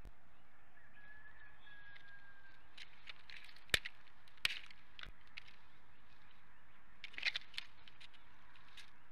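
Bald eagles working sticks in their nest: sharp twig snaps and knocks, one about four seconds in and another half a second later, then a quick run of clicks about seven seconds in, over a steady outdoor hiss.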